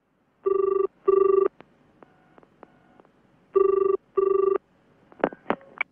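Telephone ringing in the British double-ring pattern: two short rings, a pause, then two more. A few sharp clicks follow near the end as the handset is picked up.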